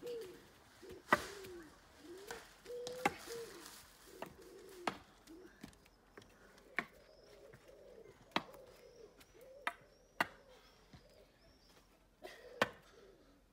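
A long wooden stick knocked down onto concrete paving slabs as it is used like a walking stick: about ten sharp, irregular taps a second or so apart. Birds call in the background.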